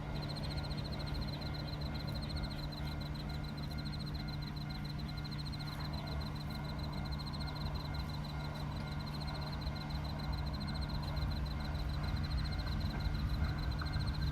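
Insects trilling in a rapid, even, high-pitched pulse over steady outdoor noise and a low hum. Near the end a low rumble slowly grows as an E3 series Shinkansen train approaches.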